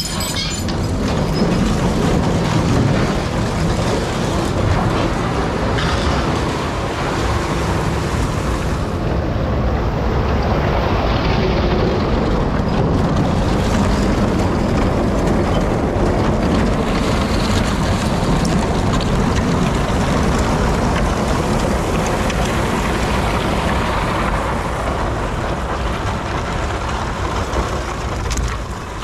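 Homemade chicken tractor being pulled along by a draft horse team, making a loud, steady noise that starts suddenly and eases a little near the end; the noise is enough to scare the horse a little.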